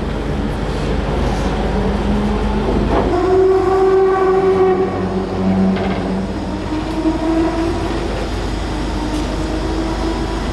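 Mazda 787B's four-rotor R26B rotary engine running at a steady fast idle, its note held at one pitch for a second or more and then stepping to another over a constant low rumble.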